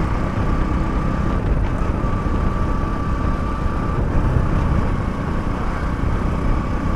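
Hero Splendor motorcycle's single-cylinder four-stroke engine running steadily while riding at road speed, mixed with heavy wind rumble on the microphone. A thin steady whine runs through most of it.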